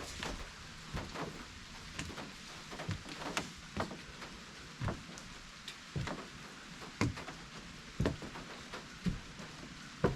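Footsteps walking at a steady pace, one soft thud about every second.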